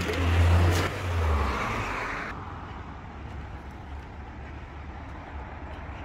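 A car driving past on the street, loudest about half a second in and fading over the next second. About two seconds in, the sound drops abruptly to a quieter, steady street background.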